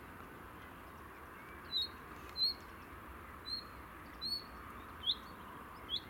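A small songbird singing a run of short, high single chirps, about six, each less than a second apart; the later notes sweep upward in pitch.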